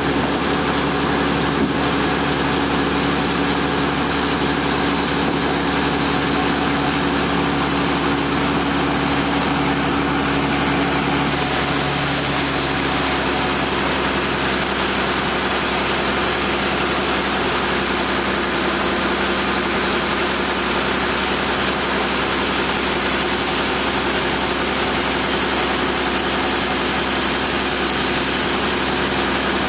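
Sawmill machinery running steadily with a mechanical hum. About twelve seconds in, the sound shifts and gains a brighter hiss.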